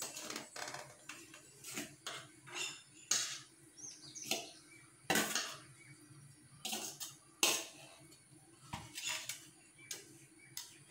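A spoon knocking and scraping against a stainless steel colander as cooked idiyappam strands are tipped out onto a plate: a series of irregular short metal clinks and scrapes, about ten in all.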